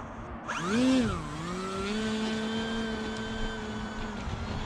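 Electric motor and propeller of a 3D-printed RC Edge 540 throttling up about half a second in: the whine rises sharply, dips back, then holds a steady pitch.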